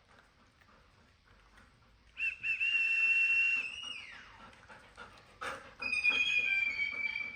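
A pet's high, whistle-like whine: a long held note starting about two seconds in that slides downward, then a shorter, slightly falling note near the end.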